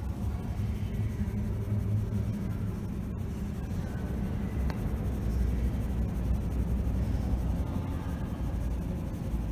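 Steady low rumble of background noise on a train platform, with a faint click about halfway through.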